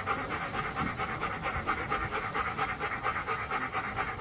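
A dog panting in a fast, even rhythm that sounds like a steam locomotive chuffing.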